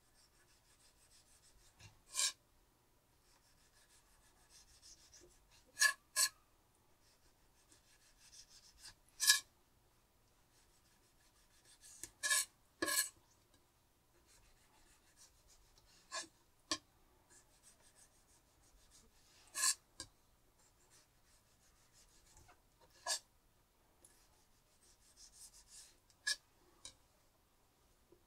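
Repeated soft scraping and rubbing strokes, each run ended by one or two sharp clacks that ring briefly, coming about every three to four seconds, about a dozen clacks in all: hand work with kitchen tools on hard surfaces while preparing turban shells.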